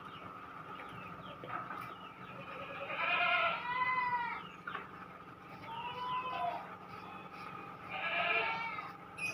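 An animal calling: two long, loud calls with wavering, arching pitch, about three and eight seconds in, and a shorter one in between, over a steady low hum.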